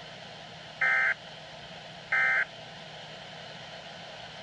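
Two short bursts of warbling digital data tones from a weather radio broadcast, a little over a second apart, over steady radio hiss. They are the last two of three SAME end-of-message bursts that close an alert.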